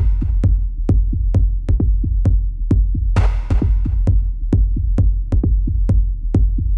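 Electronic dance music with a steady drum-machine beat about three times a second over heavy bass, with a swell of cymbal-like hiss about halfway through.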